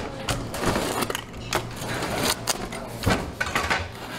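Kitchen work clatter: irregular knocks and clicks of hard objects on wood and metal, over a steady low hum.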